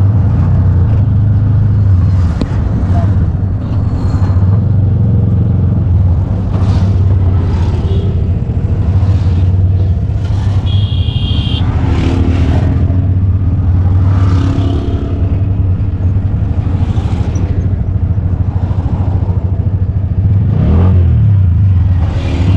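Road traffic in a congested single lane: car and motorcycle engines running and passing over a steady low rumble, with a rising engine rev near the end and a brief high tone about eleven seconds in.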